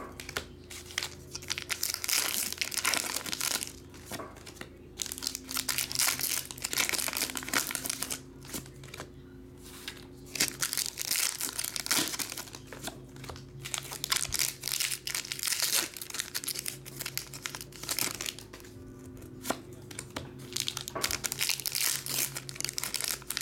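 Plastic packaging crinkling and tearing in irregular bursts as sealed trading card boxes are unwrapped by hand.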